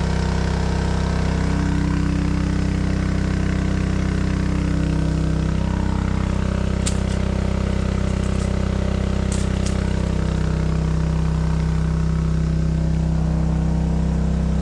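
Small engine-driven water pump running at a steady speed, pumping water up to the fishpond. A few light clicks around the middle.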